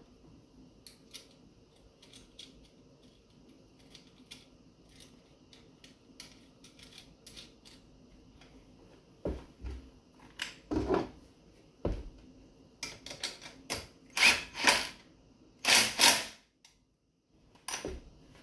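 Irregular clicks, knocks and clatters of engine parts and tools being handled during assembly: faint small clicks at first, then a run of louder knocks about halfway through, with one more knock near the end.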